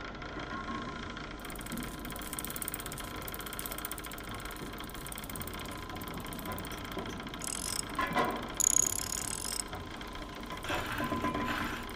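Clockwork mechanism running with a steady whir and ratcheting gear ticks, a sharp clunk about eight seconds in, followed by a short burst of hissing.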